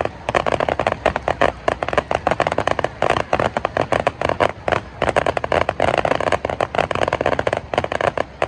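Fireworks crackling: a dense, rapid run of sharp pops and snaps, many a second, going on without a break.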